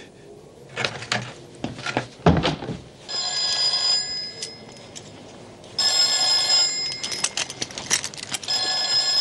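A desk telephone ringing: three rings of a little over a second each, about three seconds apart, the third still sounding at the end. A thump comes about two seconds in, before the first ring.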